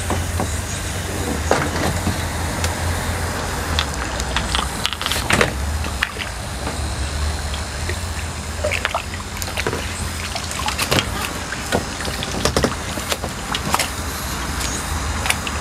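A hooked crucian carp splashing and thrashing at the pond surface as it is played on the rod and scooped into a landing net, heard as short splashes and clicks. Under it runs a steady low rumble.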